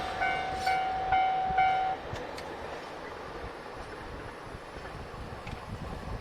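Level-crossing warning bell ringing about twice a second over a steady tone, cutting off abruptly about two seconds in as the train clears the crossing. The last of the passing diesel express's noise fades underneath.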